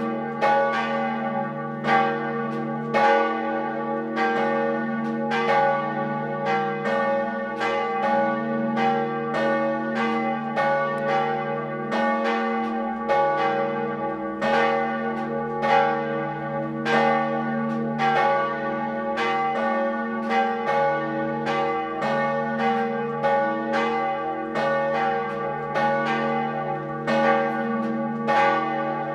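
Church bells ringing from the tower, calling to the 11 o'clock high mass. A steady run of strokes, about one or two a second, each ringing on over the next so that several bell tones hum together throughout.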